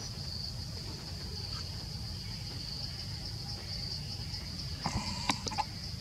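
Steady high-pitched insect chorus over a low rumble, with a few short clicks and taps about five seconds in.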